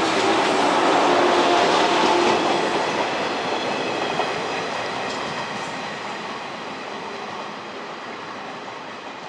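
JR 113-series eight-car electric train pulling out of the station, its traction motors humming steadily and its wheels running on the rails as the last cars pass. The sound then fades steadily as the train moves away, with one sharp click about four seconds in.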